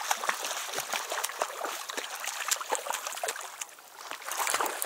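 Water splashing and trickling close by, with many small sharp clicks and knocks, easing off briefly near the end.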